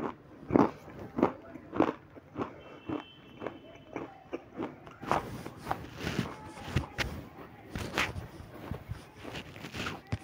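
Close-miked wet chewing and mouth smacks from eating thick white cream, a steady run of short strokes that comes faster and busier from about halfway through.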